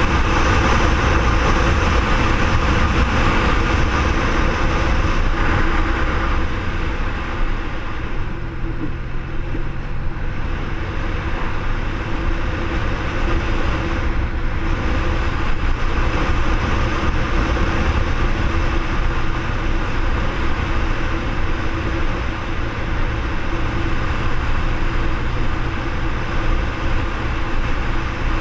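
BMW R1200R flat-twin (boxer) motorcycle engine running at a steady cruise, heard under wind rushing over the camera microphone. The engine note and level ease slightly about a quarter of the way in, then settle again.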